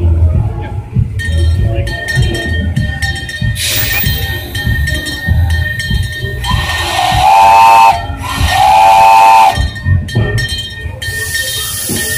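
Steam whistle of a miniature live-steam locomotive blown twice: two chime-like blasts of about a second each, the first a little longer, each sliding up in pitch as it opens.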